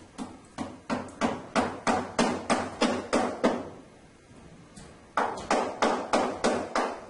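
Hammer blows in quick succession, about three a second, in two runs with a short pause between them; the first run builds from light taps to hard strikes.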